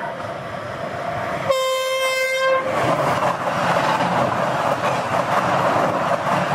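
Mumbai Rajdhani Express approaching and passing at speed. About a second and a half in, the locomotive's horn sounds one steady note for about a second. Then the coaches rush past with loud, continuous wheel and rail noise.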